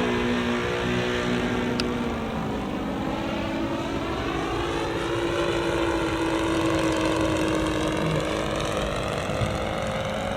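Radio-controlled model Cessna 337 Skymaster's engines droning in flight through a wing over. The engine note drops in pitch about two seconds in, then holds steady.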